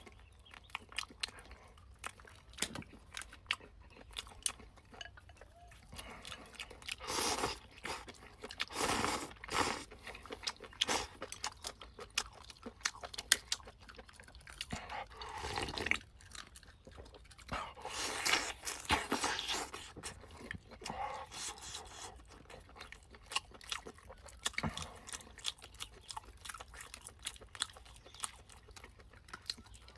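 A person eating chicken close to the microphone, chewing and biting with crunching and many sharp clicks, and several louder stretches of chewing.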